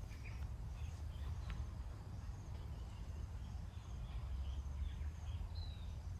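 Quiet outdoor garden ambience: a steady low rumble with faint, short high chirps scattered throughout.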